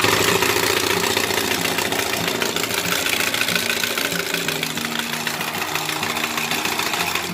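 Yamaha NMAX scooter's single-cylinder engine running with its CVT cover off, making the steady, rough, knocking clatter that is the owner's complaint, likened to a rice-mill engine.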